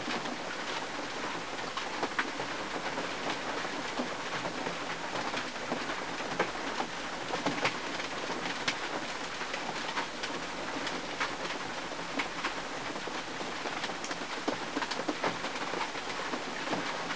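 Steady rain falling on a 1951 Mercury's windshield and body: an even hiss with many scattered sharp ticks of single drops striking.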